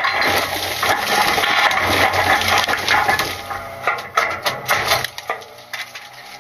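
Load Master Legacy rear-loader garbage truck's hopper compacting trash: a dense run of cracking, snapping and crushing as the packer blade sweeps the load. About five seconds in it eases off, leaving the truck's engine running.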